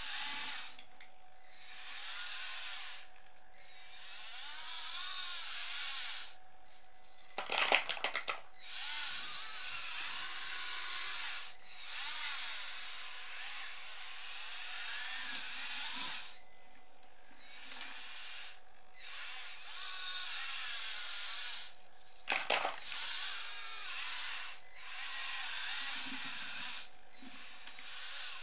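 Small electric drive motors and gearboxes of a radio-controlled Bruder skid steer loader whining and grinding, the pitch rising and falling as it drives and stopping briefly now and then. Two short, loud clattering bursts come about a third of the way in and again near the three-quarter mark.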